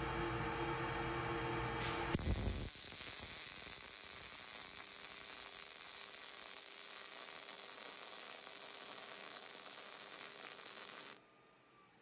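A MIG welding arc on steel strikes about two seconds in and runs as a steady hiss for about nine seconds, then cuts off suddenly as the weld ends. Before it strikes there is a hum with a few steady tones.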